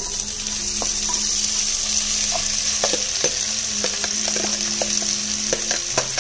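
Sliced onions dropped into hot sunflower oil in a pressure cooker set off a sudden, steady sizzle of frying, with scattered light taps against the pot.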